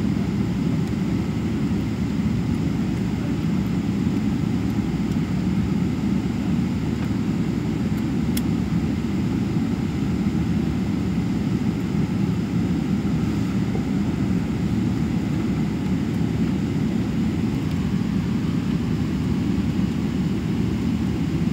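Steady low rumble of a Boeing 777-300ER airliner, its level unchanging throughout, with one faint tick about eight seconds in.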